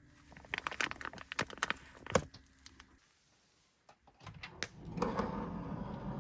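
A run of sharp clicks and knocks, the loudest about two seconds in, then a sudden drop to near silence; about four seconds in a steady rushing noise sets in.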